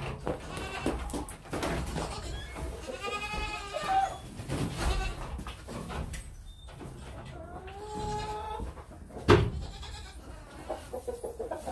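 Goats bleating, two drawn-out calls, one about three seconds in and one near eight seconds, over the rustle and knock of hay bales being handled. A single sharp thump about nine seconds in is the loudest sound.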